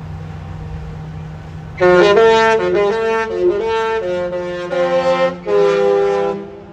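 Disney Treasure cruise ship's musical horn playing a Disney tune: a loud melody of held notes that starts about two seconds in, after a low rumble.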